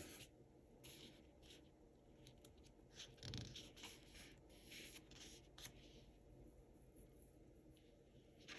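Faint rustling and scratching of paper stickers and sticker-book sheets being handled, with a sticker pressed down onto the planner page and a soft knock on the desk a little over three seconds in.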